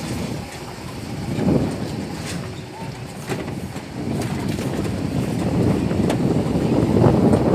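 Wind buffeting the phone's microphone over the rumble of a vehicle driving on an unpaved dirt road, with a few sharp knocks from bumps. It grows louder about halfway through.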